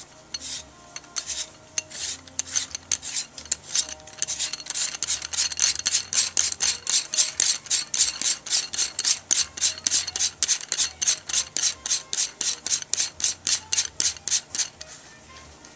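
HID flashlight's lens head being screwed back onto its threaded metal body by hand: the threads rasp in a quick, even run of short strokes, about four or five a second, which stops near the end.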